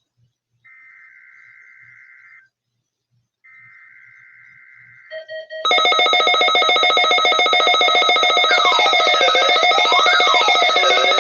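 Emergency Alert System test signal. First come two faint bursts of SAME header data, a rapid warble between two tones, each under two seconds long. Then, about five seconds in, a few short beeps lead into a loud buzzing alarm tone made of several pitches, with tones sweeping up and down.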